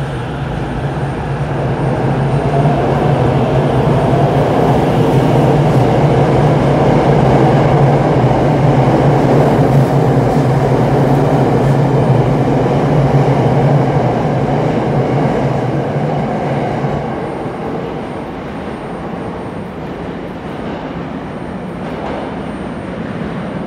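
Tokyo Metro 08 series electric train pulling out of an underground station and running past the platform: a steady rumble of wheels and motors that builds over the first couple of seconds, then fades about sixteen seconds in as the last car leaves.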